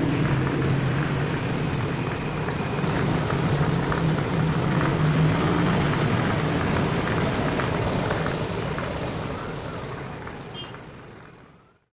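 Air compressor driven by a second-hand electric motor running steadily, a low hum under a noisy mechanical rush with light ticks, fading out near the end.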